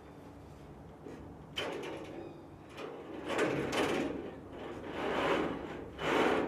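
Curtain rods on small screw hooks being hung on stainless steel wire ropes: about four short sliding, scraping sounds, the first a sudden one about a second and a half in.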